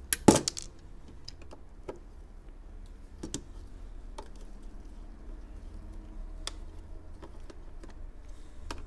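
Hard plastic-and-metal internal frame of a broadband modem being handled and set down on a cutting mat: a loud clatter of clicks just after the start, then scattered light clicks and knocks.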